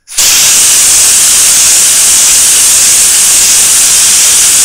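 Snap-on Venturi air blow gun blasting compressed air at full flow: a very loud, steady, high hiss that starts sharply just after the start.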